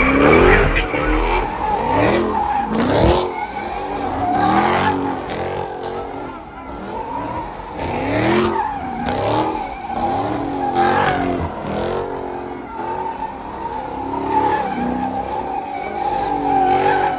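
Cars doing donuts: engines revving up and down over and over, with a steady screech of spinning tires.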